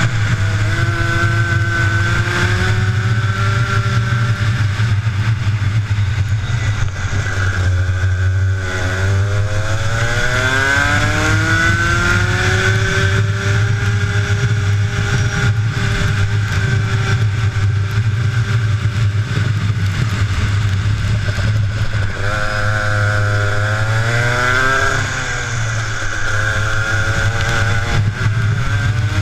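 Two-stroke kart engine revving hard on track. Its pitch drops twice as the kart slows for corners, once about a quarter of the way in and again near the end, then climbs back up under acceleration.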